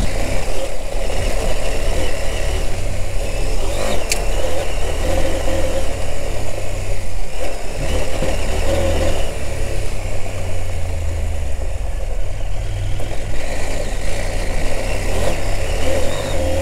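KTM 890 Adventure R's parallel-twin engine running steadily as the bike rides a gravel track, with continuous wind and road noise and a single brief click about four seconds in.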